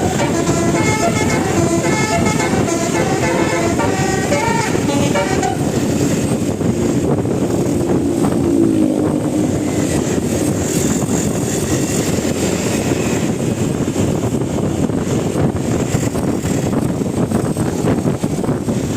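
Bus telolet horn, a 12-trumpet musical air horn, playing a quick tune of stepped notes, which stops about five seconds in. Vehicle engine and road noise go on afterwards.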